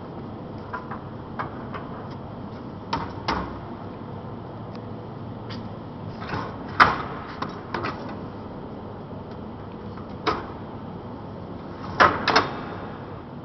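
Corrugated-elbow bending machine being worked on sheet-metal pipe: short, sharp clicks and knocks at irregular intervals over a steady background hum, the loudest a single knock near the middle and a close pair near the end.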